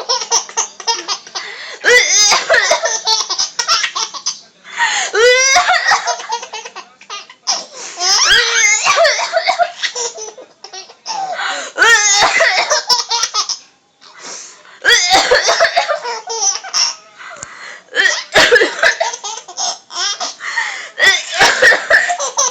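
A baby laughing hard in repeated belly-laugh bouts, one every two to three seconds with short pauses between them, the laughter set off by coughing.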